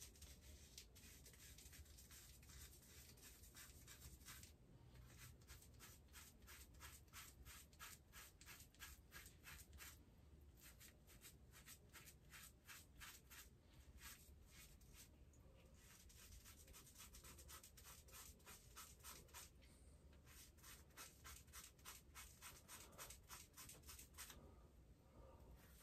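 A hand razor scraping through a month's growth of thick beard hair, faint rasping strokes in quick runs of about three to four a second, broken by short pauses.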